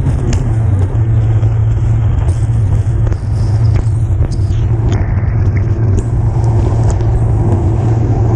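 Kawasaki SXR 800 stand-up jet ski's two-stroke twin engine running hard at a steady pitch under racing throttle, mixed with the rush of water and spray around the hull, and a few sharp ticks.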